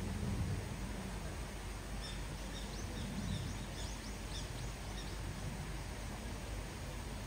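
Small birds chirping: a quick run of short, high chirps from about two seconds in until about five seconds, over a steady outdoor background hiss.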